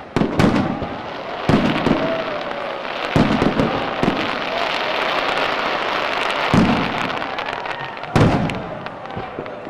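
Aerial fireworks going off: repeated heavy bangs of bursting shells over a continuous dense crackle of smaller reports. The biggest bangs come right at the start, about a second and a half in, and about eight seconds in.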